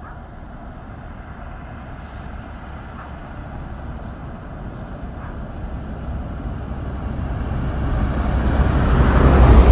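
A road vehicle approaching, its rumble growing steadily louder and loudest near the end as it passes close.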